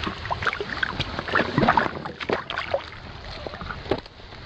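Water splashing and sloshing in an ice-fishing hole as a released small walleye kicks its way down through it: a quick run of splashes over the first few seconds, then quieter.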